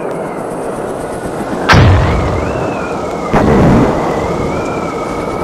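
Cinematic logo sound design: a dense rumbling bed with two heavy booms, about a second and a half apart, the first the loudest, under a wavering high tone.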